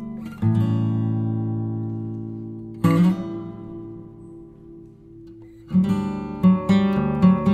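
Background music of acoustic guitar chords, strummed and left to ring out. A quicker run of strums comes near the end.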